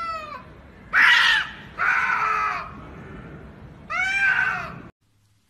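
Two domestic cats yowling at each other in a standoff: a series of drawn-out, wavering cries, the loudest and harshest about a second in. The sound cuts off suddenly near the end.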